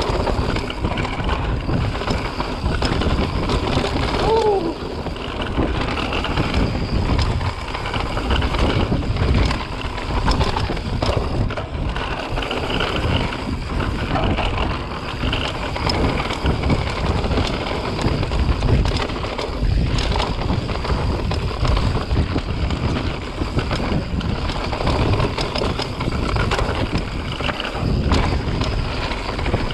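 Mountain bike descending a rough dirt trail at speed: constant tyre rumble and rattle of the bike over the ground, with wind buffeting the camera's microphone.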